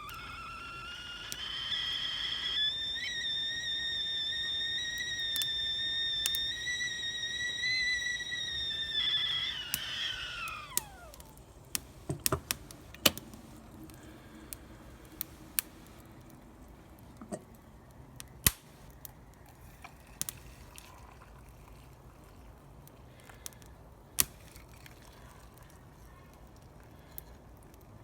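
Whistling kettle at the boil: a high whistle that rises in pitch, holds steady, then slides down and dies away about ten seconds in. After it comes a crackling camp fire with scattered sharp snaps and pops.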